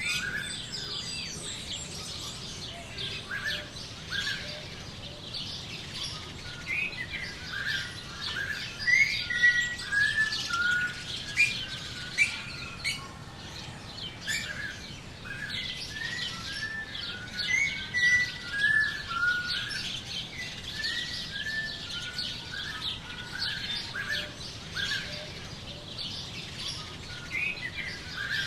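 Birds chirping and singing, a dense chorus of many short, overlapping chirps and whistled notes that goes on throughout.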